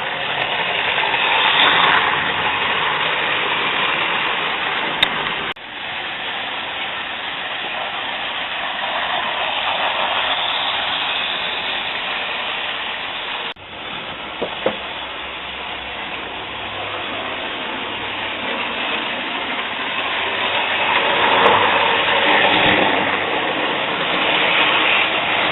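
Hornby model train running on the layout's track: a steady motor whir and wheel rush that swells and fades as it passes close by, broken by two sudden cuts.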